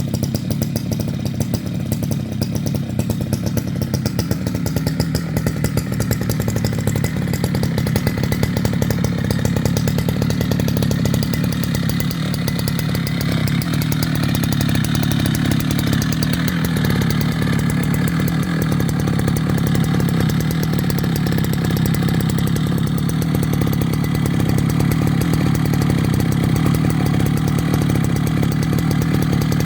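Dolmar 153 100 cc two-stroke chainsaw running steadily, its pitch dipping briefly a little past the middle.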